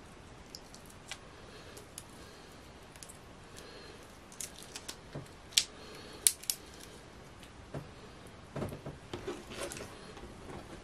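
Raw shrimp shell being peeled off by hand, cracking in a scatter of faint, sharp clicks, the sharpest a little past halfway. Near the end comes a cluster of soft knocks and rustles as the shrimp and shell bits are handled on the cutting board.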